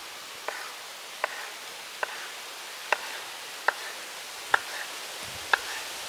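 A knife chopping fried sausages into pieces on a wooden cutting board: seven sharp strokes, about one a second, each knocking through onto the board.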